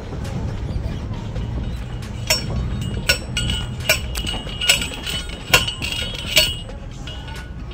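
Hand-held post driver pounding a steel fence T-post into the ground: six sharp metallic clanks with a ringing tone, evenly spaced a little under a second apart, starting about two seconds in, over a low steady rumble.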